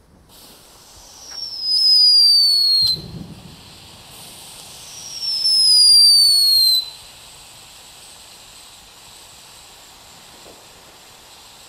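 Funke Cuckoo ground fountain firework hissing as it sprays sparks. It gives two loud whistles, each about a second and a half long and falling slightly in pitch; the second starts about five seconds in. A steady spark hiss carries on after the whistles.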